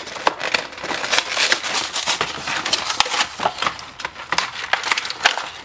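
A toy blister-card package being torn open by hand: the cardboard backing ripping and the clear plastic blister crinkling, a dense run of sharp crackles and rustles.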